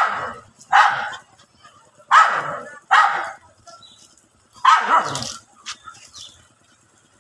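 A dog barking at another dog in a tense face-off: five loud barks, in two pairs about a second apart and then a single one, before it falls mostly quiet.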